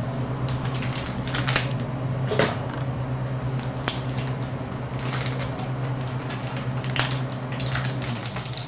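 Foil trading-card pack wrappers crinkling and rustling in irregular crackles as they are handled and peeled open.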